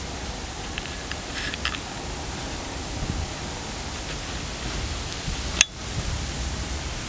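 Steady noisy rush of wind on the microphone over the low rumble of a slowly receding cut of freight wagons, with one sharp click about five and a half seconds in.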